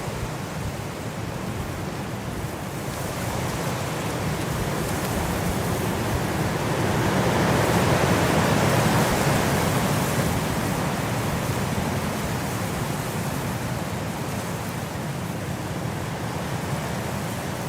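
Winter wind blowing steadily as a broad rushing noise, swelling into a stronger gust about halfway through and easing off again.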